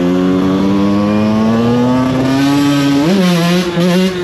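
Small two-stroke engine running at high revs, its pitch slowly creeping up and then rising sharply about three seconds in.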